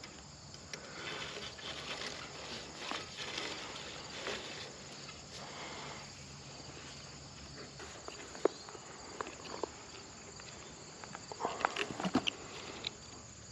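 Handling noise of hands-on work: rustling, then scattered sharp clicks and a quick run of clicks and knocks near the end.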